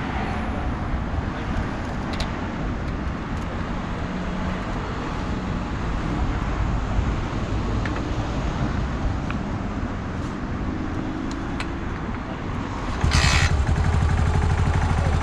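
Motor vehicle engine noise runs steadily. Near the end a brief hiss comes, then a louder, pulsing low engine rumble.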